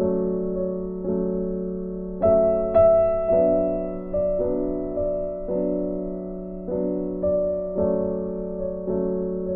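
Background music: a soft, slow piano melody, its notes struck about once a second and left to ring.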